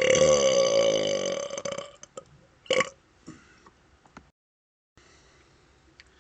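A man's long, loud burp from gas out of chugged Dr Pepper soda, running for nearly two seconds and fading out, followed near the three-second mark by one short, sharp burst, then faint clicks.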